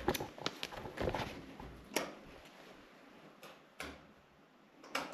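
Wall light switch clicked on and off several times, irregular sharp clicks in a small quiet room, with no light coming on: the fitting is not working.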